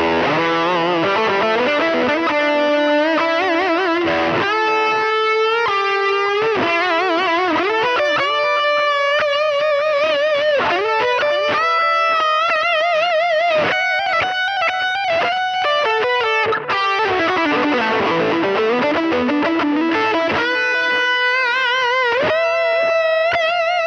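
Overdriven electric guitar lead through a Fractal Audio FM9's USA Subway Blues amp model, modelled on the Boogie Subway Blues, with a BB Pre overdrive in front and a panning delay, into the 1x10 Metro Blues DynaCab. It plays sustained notes with wide vibrato and string bends between quicker runs.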